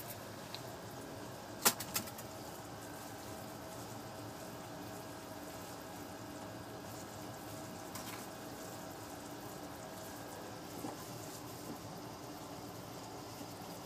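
Steady background hum with a couple of faint held tones in it, broken by two sharp clicks close together about two seconds in and a few weaker ticks later.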